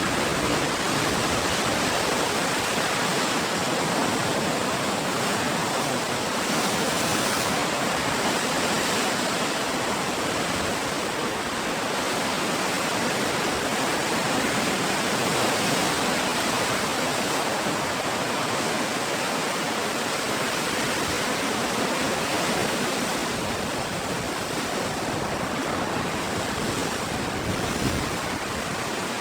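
Ocean surf, a continuous wash of breaking waves with only gentle swells in loudness.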